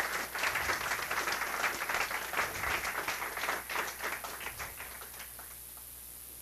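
Audience applauding. The clapping thins out and stops about five seconds in.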